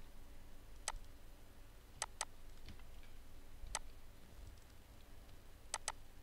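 Computer mouse button clicking: single sharp clicks and two quick double clicks, over a faint low hum.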